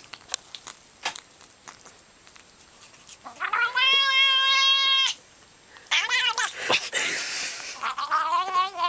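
Domestic cat making odd, drawn-out gurgling yowls while being scratched under the chin: one long held call about three seconds in, then a shorter wavering call, then a warbling one starting near the end.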